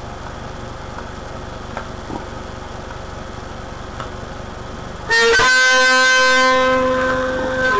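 Steady low hum with a few faint clicks, then about five seconds in a tango recording starts loudly with long held chords.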